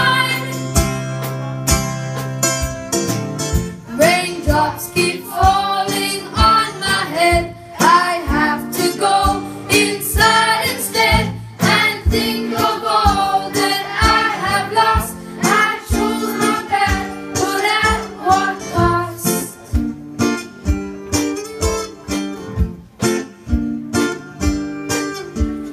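Live band music with no words sung: a steady beat over bass notes, with a melody line carrying through the middle and thinning out in the last few seconds.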